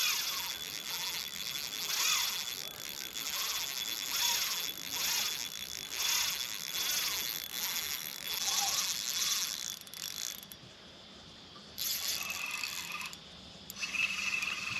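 Fishing reel ratcheting with fast clicks under the load of a hooked fish, in surges about once a second, dropping away about ten seconds in and returning in two shorter bursts near the end.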